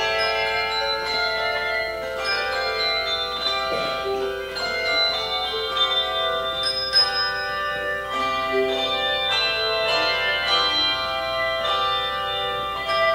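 Handbell choir ringing a melody in chords: repeated struck notes, each ringing on and overlapping the next.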